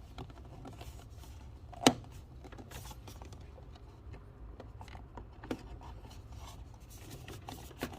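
Scattered clicks and light scraping as a 3D-printed elastic-filament seal ring is pressed into a tight fit around the inner burr of a Breville Barista Pro's built-in grinder, with one sharper click about two seconds in.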